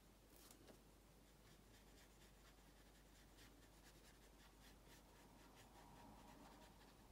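Near silence, with faint soft strokes and taps of a small round watercolour brush on watercolour paper.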